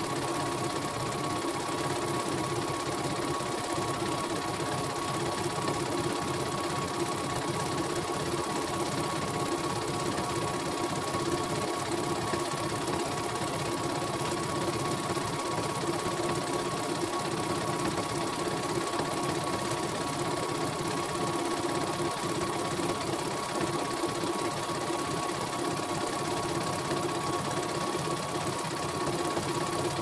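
Computerized home embroidery machine stitching out a design, its needle mechanism running steadily and evenly.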